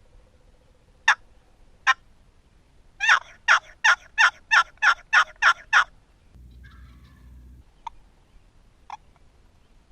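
Turkey yelps on a homemade wooden box call: two single raspy yelps, then a quick run of about nine yelps at roughly three a second.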